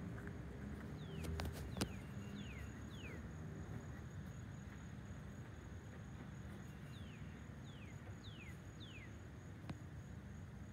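Outdoor street ambience: a steady low rumble under a thin steady high insect drone, while a bird gives short downward-sliding chirps in two runs, a few in the first three seconds and four more later on. A couple of sharp clicks sound about a second and a half in.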